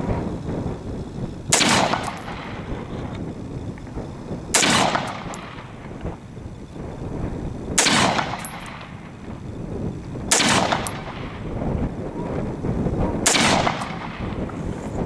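Smith & Wesson M&P15 Sport II AR-15 rifle firing five single 5.56 mm shots, about three seconds apart, each followed by a short echo.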